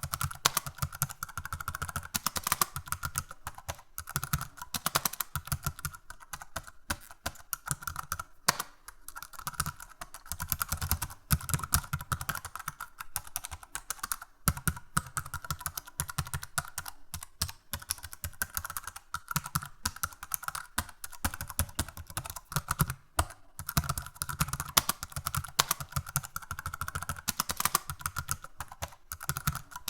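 Typing on a computer keyboard: rapid, continuous key clicks with short pauses between runs of keystrokes.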